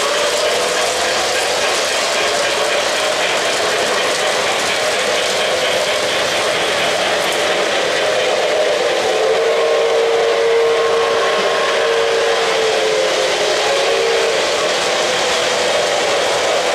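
O-gauge model trains running on the layout's track, a steady rolling rumble of wheels on rails. A steady tone sounds for about five seconds past the middle.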